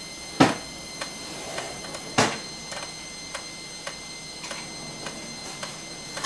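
Amiga floppy disk drive reading a disk: a run of light, irregular clicks as the head steps from track to track, with a couple of louder clunks. The disk is a cleaned, formerly unreadable one, and it is reading without trouble so far.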